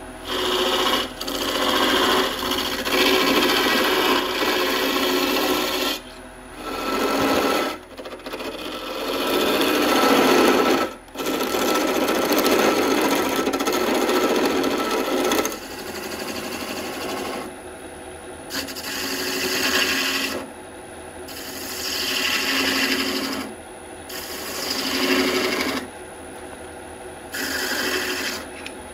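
Turning tool cutting a spinning birch blank on a wood lathe: a rough scraping hiss that comes in passes of a few seconds with short breaks between them, the longest and loudest pass in the middle.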